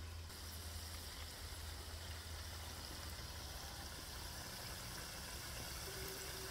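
Potato sticks deep-frying in hot oil in an open pan: a faint, steady sizzle that picks up slightly just after the start.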